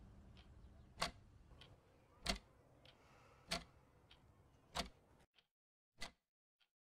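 Clock ticking slowly and faintly: a sharp tick about every one and a quarter seconds with a fainter tick between each, over a low background noise that drops away about five seconds in.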